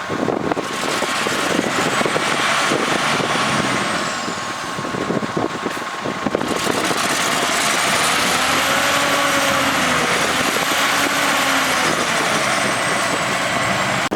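Heavy diesel earthmoving engines working hard, a bulldozer and a loaded dump truck in a sand recovery. The engine pitch rises and falls through the second half, with a high whine that rises and falls above it.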